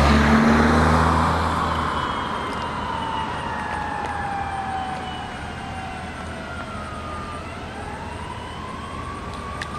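Fire truck passing with its siren wailing: engine and siren are loudest in the first second or two, then grow fainter as it moves away. The siren slowly falls in pitch for several seconds, then rises again near the end.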